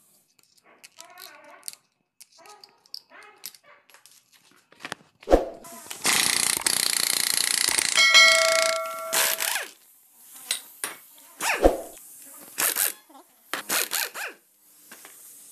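Pneumatic impact wrench running on a Maruti Swift gearbox shaft nut in a loud stretch of about three seconds in the middle, ending in a ringing metallic tone, then two short bursts. Sharp metal knocks come from tools before and after.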